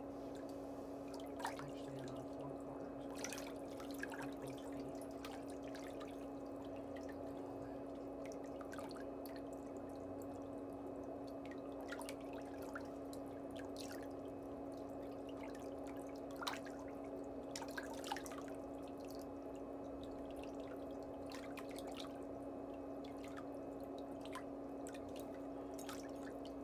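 A metal pedicure pick clicking and scraping faintly now and then as it cleans under and along the edge of a big toenail, over a steady low hum.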